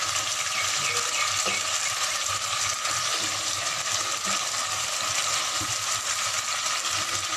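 Pieces of rohu fish and potato sizzling steadily in spiced oil in a pot as a spatula turns them, with a few soft scrapes and knocks against the pot.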